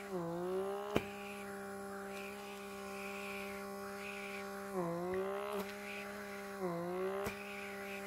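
Handheld pore vacuum (blackhead remover) running on its highest setting, 5, with a steady motor whine as its nozzle is worked over the nose. The pitch dips briefly and recovers three times, and there are a few sharp clicks.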